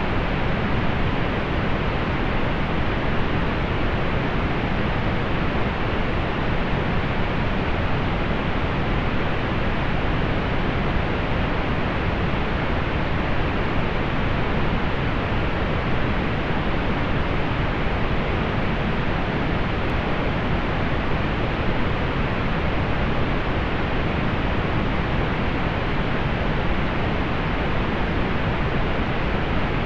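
Steady synthetic pink noise: an even, unchanging hiss with most of its weight in the low end, softening above the upper mids.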